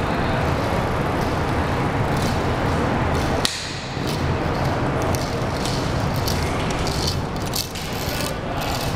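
Steady rumble of highway traffic on the bridge overhead, with one sharp click about three and a half seconds in.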